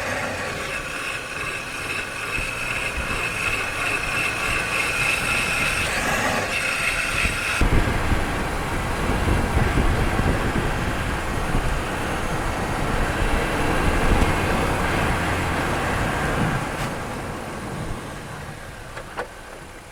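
Car in motion, with a steady high squeal from a wheel for about the first seven seconds, then a louder rumble of tyres on the road that eases off near the end.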